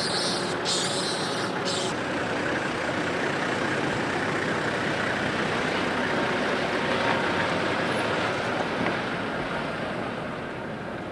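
A steady engine drone like an idling vehicle, with two short high hisses in the first two seconds.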